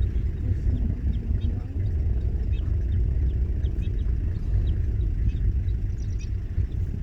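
Steady low rumble, with short, faint high chirps of small birds scattered through it, clustering a little after six seconds in.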